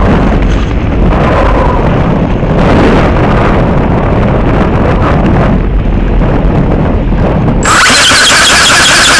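Wind rushing and buffeting over the microphone of a camera on a flying model ornithopter, with a heavy low rumble. About three-quarters of the way through, the ornithopter's motor throttles up suddenly to a loud, steady high-pitched whine as the model climbs.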